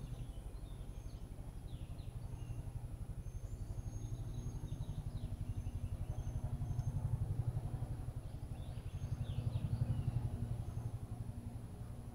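A steady low motor hum with a fast, even pulse that grows louder twice in the later half. Faint bird chirps sound over it now and then.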